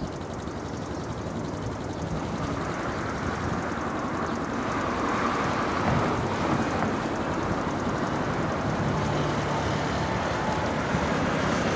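Strong wind buffeting the microphone, with the engine noise of an approaching airliner on final growing slowly louder.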